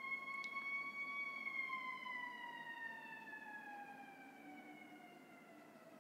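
US fire engine siren, very sharp: one long held tone that slowly drops in pitch and fades over the last few seconds.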